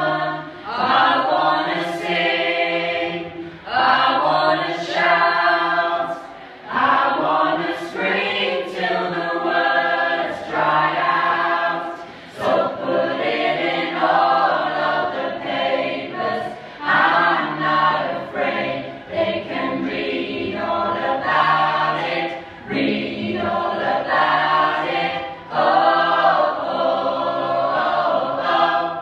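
Choir singing unaccompanied in harmony, in sung phrases of a couple of seconds each with short breaths between them.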